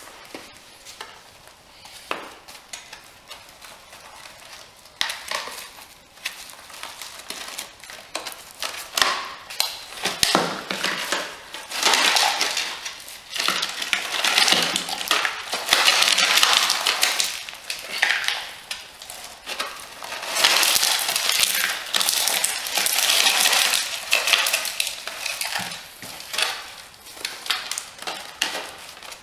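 Shattered ceramic fragments from a bullet-struck armour plate crunching and rattling inside the plate's cover as it is handled and squeezed, with pieces clinking and spilling onto a hard surface. After a quieter start of light handling clicks, the crunching comes in repeated bursts.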